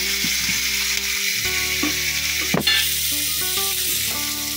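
Chopped onions sizzling steadily in hot oil in a non-stick kadai while a spatula stirs them. There is one sharp knock about halfway through.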